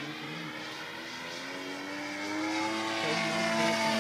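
Twin-cylinder two-stroke DLE 111 gasoline engine of a large RC aerobatic plane running in flight. Its note rises in pitch and grows louder through the second half.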